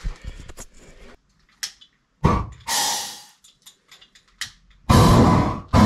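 Handheld gas torch heating a skid steer's axle housing bore so that frozen interference-fit seals will slide in. A few clicks and a knock come first, then a short hiss about two and a half seconds in, and about five seconds in the flame starts up in loud, full hissing pulses.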